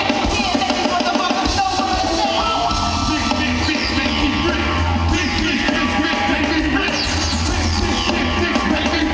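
A live band playing loudly through a concert sound system, with voices singing and yelling over the music, heard from within the audience.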